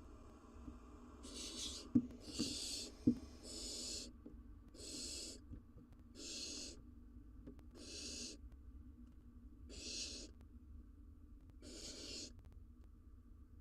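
Barn owls in a nest box giving a series of about eight rasping hiss calls, each about half a second long and repeated every one to two seconds, typical of food-begging. Two sharp knocks in the box come about two and three seconds in.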